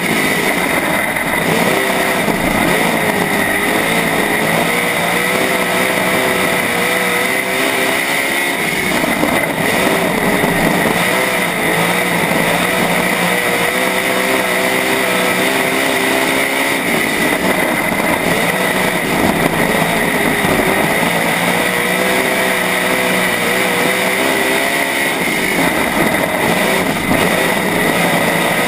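A USMTS dirt-track modified's V8 engine, heard from inside the car at racing speed. The engine pitch dips and climbs back about every eight seconds, three times, as the car slows for each turn and accelerates out of it.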